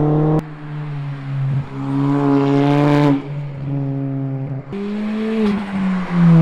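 Engine and exhaust of a Ford Fiesta ST, its turbocharged 1.6-litre four-cylinder fitted with a TurboTechnics S280 turbo, running as the car drives, with a steady droning note. The tone changes abruptly about half a second in and again near five seconds; the pitch climbs a little around two to three seconds in and falls near the end.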